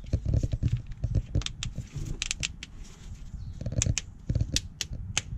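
Orange plastic ratchet brake hose clamp clicking as it is squeezed shut on a flexible brake hose. There are two runs of sharp clicks, about a second and a half in and again near the end, over a low handling rumble at the start.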